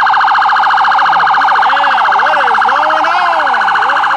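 Police siren sounding in a rapid pulsing warble, loud and unbroken. Fainter rising-and-falling siren wails sit underneath.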